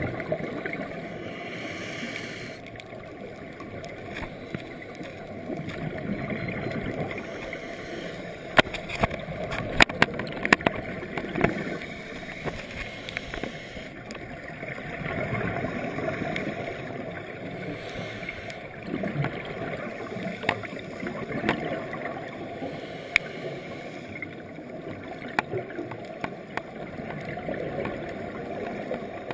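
Muffled underwater sound picked up through a GoPro housing: scuba regulator exhaust bubbles rumbling and gurgling in swells every few seconds, with scattered sharp clicks, a cluster of them about a third of the way in.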